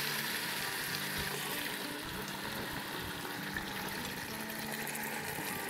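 Meat frying in the inner pot of an electric pressure cooker on sauté mode: a low, steady sizzle.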